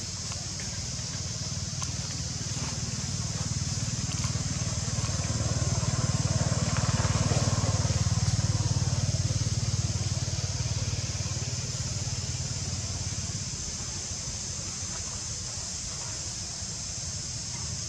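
A motor vehicle passing by, its engine rumble growing louder for several seconds, peaking about halfway through and then fading away, over a steady high hiss.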